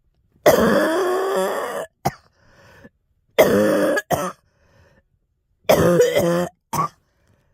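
A girl coughing in three loud bouts, each followed by a short extra cough.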